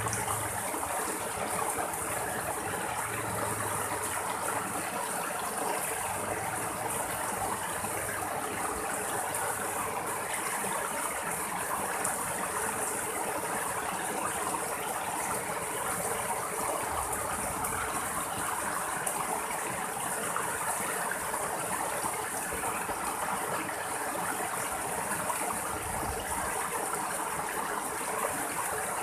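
Shallow rocky mountain stream rushing steadily over small cascades between boulders.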